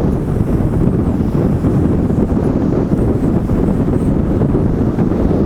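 Strong wind buffeting the microphone: a loud, steady, low rumbling rush.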